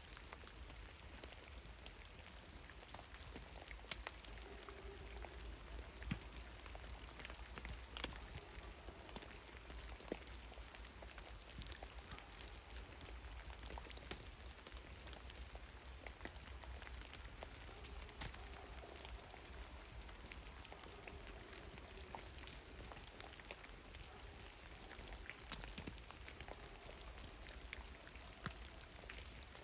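Meltwater dripping from heavy, melting snow in a forest: irregular drops striking snow and branches, a few sharper taps standing out over a faint steady hiss.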